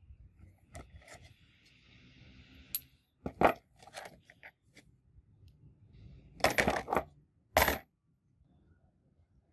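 Brass hex nuts clinking against each other and against the bowl as they are handled: scattered sharp metallic clinks with a bright ring, the loudest bunched together about two-thirds of the way through.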